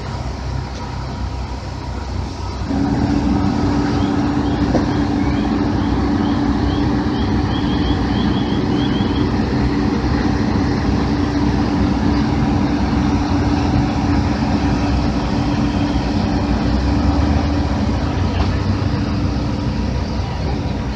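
Heavy vehicle engine running steadily at the scene, a steady hum with overtones over low rumbling noise. The hum comes in and grows louder about three seconds in.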